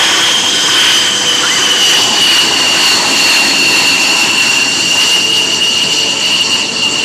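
USAF Thunderbirds F-16's jet engine running as the jet taxis past on the runway: a loud, high-pitched whine over a steady roar, dropping slightly in pitch over the first few seconds and then holding steady.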